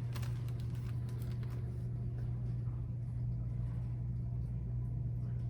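Steady low hum of a large store's background, with a few faint clicks.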